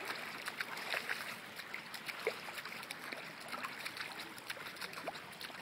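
Shallow floodwater trickling, with scattered small splashes and drips.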